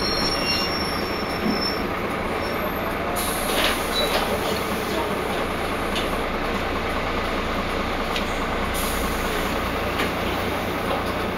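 Interior of a Wright Cadet single-deck bus on the move: steady engine and road rumble with occasional rattles and clicks. Thin high-pitched squealing tones fade out within the first second; the bus is known for making odd noises.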